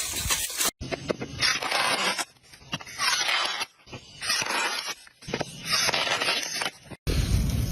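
Crisp crunching and scraping of fresh vegetables being harvested and handled, in three bursts of about a second each with quieter gaps between.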